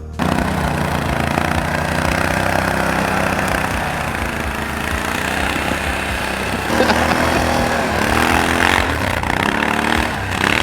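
Can-Am Outlander ATV on Apache rubber tracks running under load as it pushes through deep snow. The engine note rises and falls in pitch over the second half.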